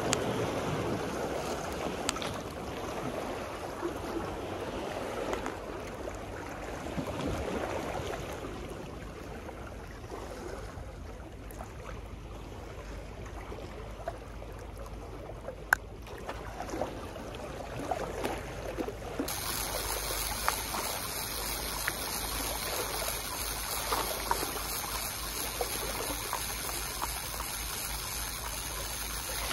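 Sea water washing and lapping against a seawall embankment, with a few small clicks, the sharpest about halfway through.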